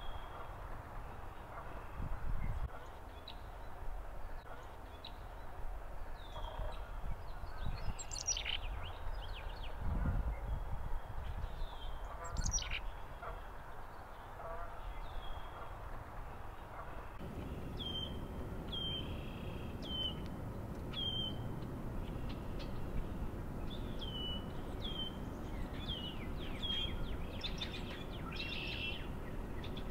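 Songbirds chirping: short, high, down-curving chirps that come more often in the second half, with two louder sweeping calls about a third of the way in. Wind rumbles and gusts on the microphone underneath.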